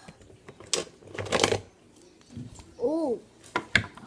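Rustling and clicking of small plastic toys and packaging being handled, with a louder burst of rustling in the first half and a few sharp clicks near the end. About three seconds in, a child's short hum rises and falls in pitch.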